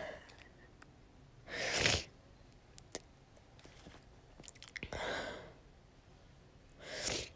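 A tearful girl sniffling between sentences: three short, noisy sniffs about two and a half seconds apart, with a few faint clicks between them.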